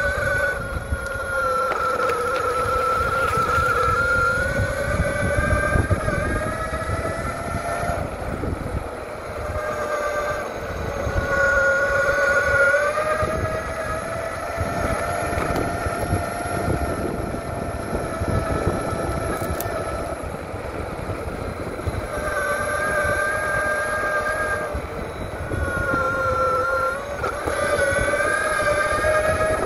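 SYL-08 V3 electric mountainboard's motors whining as it rides, the whine slowly rising and falling in pitch with speed, over a steady low rumble of the wheels rolling on the ground.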